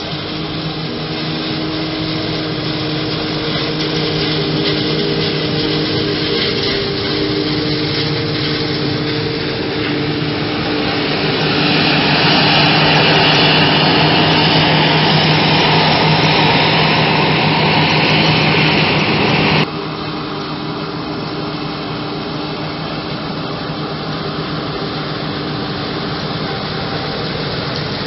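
Forage harvester and tractor engines running steadily while chopping maize. The chopping and blowing of the harvester swells to a loud rushing hiss a little before halfway, then drops abruptly to a quieter, steady tractor engine hum.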